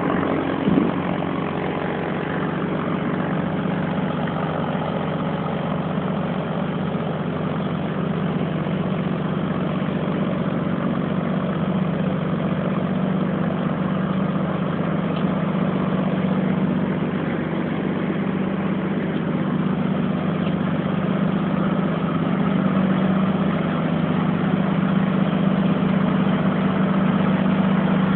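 Small tractor engine running steadily under load as it pulls a trailer across soft, rutted mud, with a brief knock about a second in.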